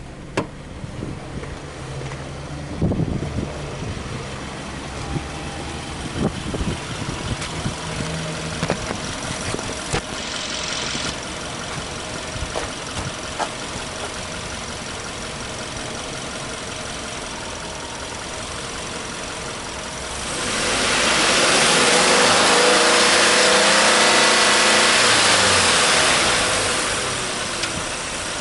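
Subaru Impreza G4 1.6i's 1.6-litre flat-four boxer engine starting about three seconds in and settling into a steady idle. About twenty seconds in it is revved once with no load, the pitch climbing and falling back over some six seconds, then it idles again.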